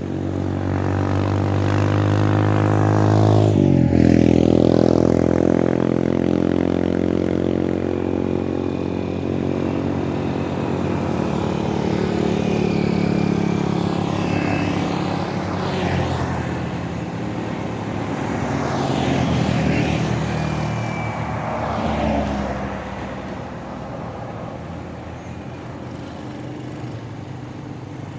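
Road traffic: motor vehicles driving past close by one after another, each engine note dropping in pitch as it goes past. The loudest pass comes about three to four seconds in.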